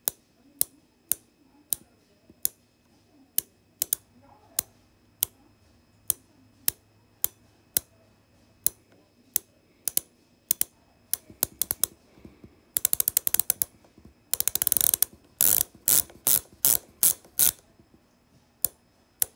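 Industry Nine Torch hub with 120 points of engagement turned by hand, its freehub pawls clicking over the ratchet one engagement at a time. The clicks come singly and slowly, grow quicker, run into two brief fast buzzes when the hub is spun, then slow to single clicks again.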